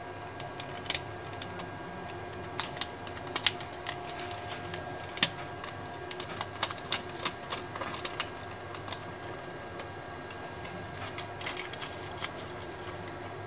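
Plastic label sticker crinkling and clicking as it is pressed and wrapped back around a Samsung Note 4 battery: scattered sharp clicks, busiest in the first half, over a steady faint hum.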